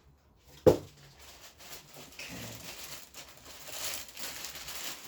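A single sharp knock, then rustling and crinkling of packaging as new parts are unwrapped and rummaged through.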